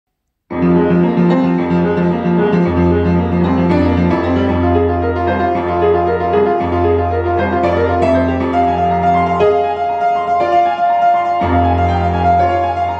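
Upright piano played fast in a toccata: quick runs of notes over held low bass notes, starting about half a second in, with a high note repeated over and over from about a third of the way through.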